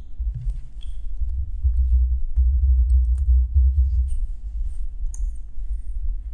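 A low, uneven rumble that swells in the middle, with a few faint clicks of typing on a computer keyboard and clicking a mouse.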